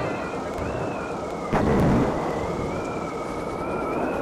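Sound effects for an animated logo: a deep boom with a rumbling tail about one and a half seconds in, over a noisy rumble and a wavering high-pitched drone.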